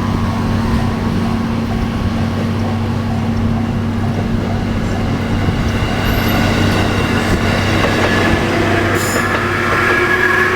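JR Kyushu limited-express electric train running past on the Nippō Main Line, a steady low rumble and hum with a whine that rises in pitch over the second half.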